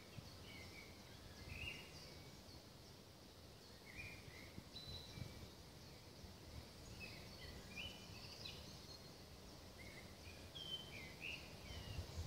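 Faint woodland ambience: scattered short bird chirps and calls, many in quick succession, over a low steady background rumble.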